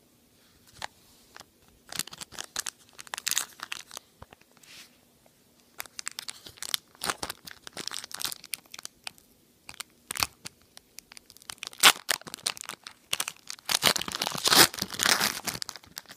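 Foil trading-card pack and its plastic wrapping being torn open and handled: irregular bursts of crinkling and tearing, busiest and loudest near the end.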